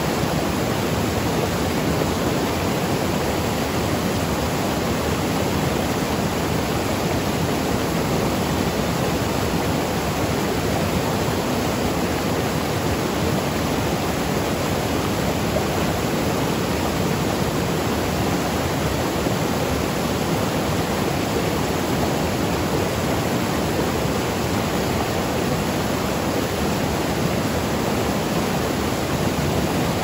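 River water pouring over a low rocky cascade: a steady, unchanging rush of falling water.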